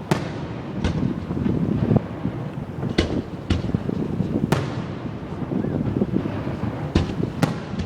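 Fireworks display: about eight sharp bangs of bursting shells at uneven intervals, each trailing off in an echo, over a steady low rumble.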